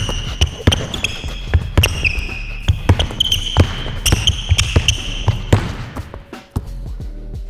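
A basketball being dribbled on a hardwood gym floor, two to three bounces a second, with short high squeaks from sneakers on the floor. The dribbling fades out about six seconds in, ending with one thud, and background music takes over near the end.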